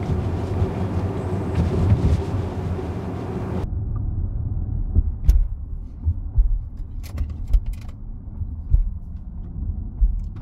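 Low tyre and road rumble inside the cabin of an Audi Q4 40 e-tron electric SUV driving, with no engine sound. A higher hiss cuts off suddenly about four seconds in, and a few light clicks follow later on.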